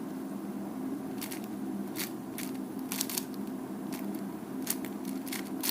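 A 4x4 speedcube being turned by hand: irregular sharp clicks of its layers snapping into place, several in quick succession, over a faint steady hum.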